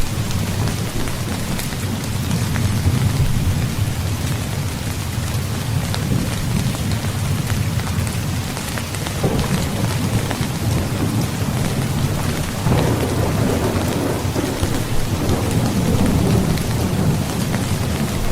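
Steady heavy rain with rolling thunder rumbling underneath, the rumble swelling about halfway through and again after about two-thirds of the way.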